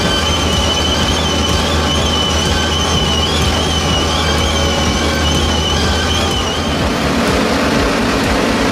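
Tractor engine running under load as it pulls a multi-row precision seed planter, with a high wavering whine over a steady low hum. About seven seconds in the sound changes abruptly: the whine stops and a different tractor's engine drone, lower and steady, takes over.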